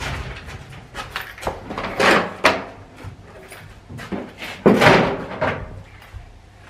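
A wooden storage-unit door and its lock being handled: a run of clicks, knocks and thuds, with the loudest clatter just under five seconds in.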